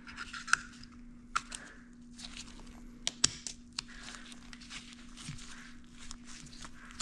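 Gloved hands handling and pressing together plastic wiring connectors on a motorcycle engine: rustling of the gloves with several sharp plastic clicks, the loudest about half a second in and just after three seconds in.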